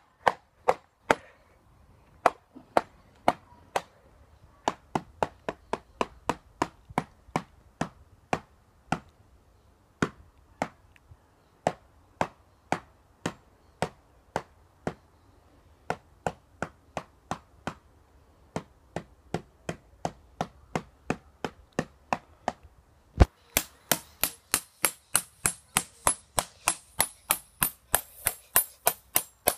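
A metal tool repeatedly striking the cracked glass screen of an iPad mini, about two sharp hits a second. Near the end the hits turn louder and brighter, with a clinking ring.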